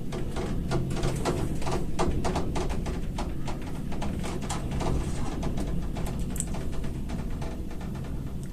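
Loose cables hanging from a roof knocking against window glass in the wind: a rapid, irregular run of taps and knocks, several a second, over a low rumble of wind.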